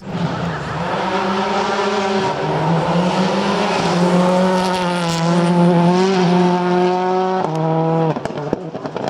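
Ford Focus WRC rally car's turbocharged four-cylinder engine pulling hard up a hill-climb course, its note stepping down with gear changes about two seconds in and again near the end. The engine note then falls away, with a few sharp pops.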